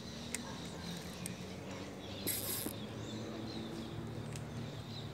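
Spinning reel being cranked under load against a hooked fish, its gears and mechanism clicking, with a short loud hiss about two seconds in.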